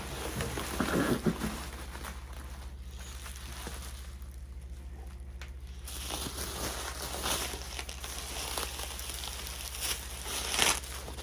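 Packaging rustling and crinkling as a hi-hat cymbal is unpacked from its box. The rustling comes in spells near the start and through the second half, with a quieter stretch of a few seconds in the middle and a few sharper rustles near the end.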